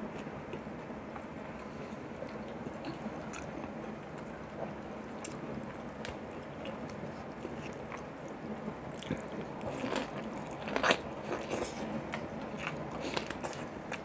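Close-miked chewing and wet mouth sounds of a man eating boiled beef soup with vegetables. About nine seconds in, sharper wet clicks and crackles begin and come thicker.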